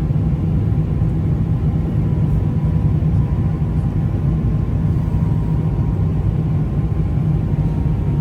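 Steady low rumble of engine and airflow noise inside an Airbus A350-900 cabin on the descent to landing, with faint steady hums above the rumble.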